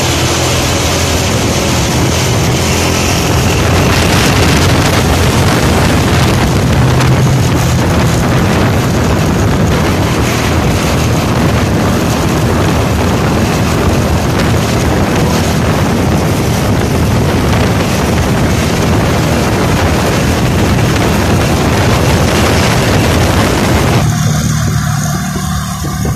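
Heavy wind rushing over the microphone of a camera carried on a moving vehicle, over the rumble of engines and tyres in traffic. Near the end the wind noise suddenly drops away and leaves a low steady hum.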